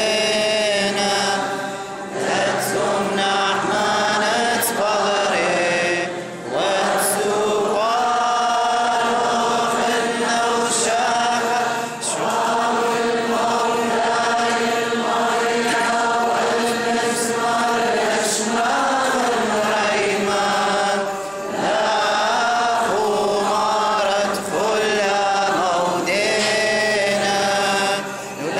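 A group of voices singing a slow liturgical chant of the Chaldean Catholic Mass, long held phrases with short breaks between them.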